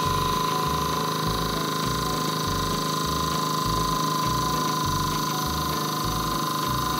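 Hydraulic press's pump and motor running steadily with a constant whine and an even low pulsing, driving the ram down onto a plastic toy figure.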